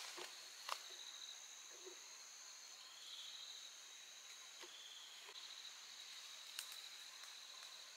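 Faint, steady high-pitched insect chorus, with a few soft clicks.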